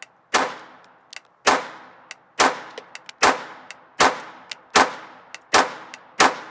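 Intratec Tec-22 .22 LR semi-automatic pistol firing eight shots at a steady pace, about one every 0.8 s, each a sharp crack with a short fading tail. Fainter clicks fall between the shots.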